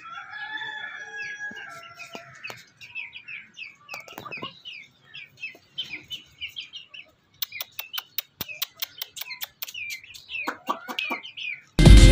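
Chickens and chicks calling: a long, held call from a chicken at the start, then quick repeated peeping from the chicks, with a run of fast sharp taps in the middle. Loud music starts suddenly near the end.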